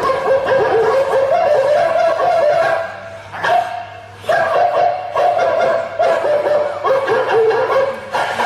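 High-pitched laughter over music, dropping away briefly about three seconds in.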